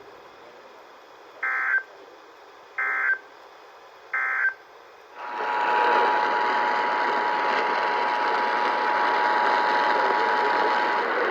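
Emergency Alert System alert: the SAME digital header sent as three short bursts of data tones about a second and a half apart. Then the two-tone EAS attention signal, a steady two-pitch tone, sounds over loud hiss for about six seconds and stops just before the end.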